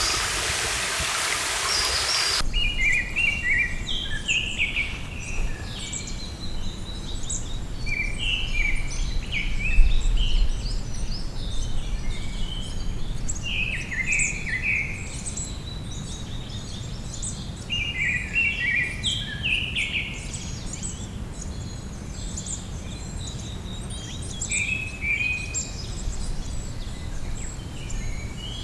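Rushing stream water for the first two seconds or so, then an abrupt change to a songbird repeating a short warbled phrase every few seconds, over a low steady rumble.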